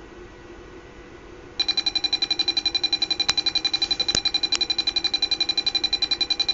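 Small speaker driven by an Arduino Mega2560 starts playing a buzzy electronic tone about a second and a half in, rich in overtones and pulsing rapidly many times a second. A few short sharp clicks sound over it in the middle.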